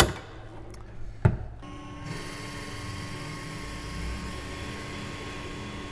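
Tormach 8L CNC lathe: the enclosure door shuts with a sharp bang and a second knock follows about a second later. Then the spindle comes up to speed and runs steadily with a constant tone over a hiss of spraying coolant, as the lathe takes a facing cut on the saw-cut end of the stock.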